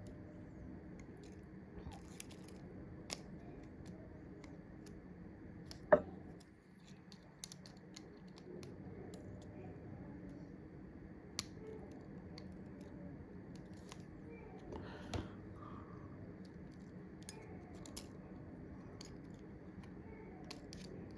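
Small hand tools clicking and scraping against a phone's internal parts while prying at a stuck bracket. Scattered sharp clicks, with one louder click about six seconds in, over a faint steady hum.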